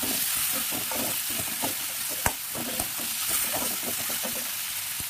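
Chopped onion, tomato, curry leaves and garlic sizzling in hot oil in a kadai while a metal spatula stirs and scrapes them around the pan. A sharp clink of the spatula against the pan comes a little over two seconds in, and a lighter one just after.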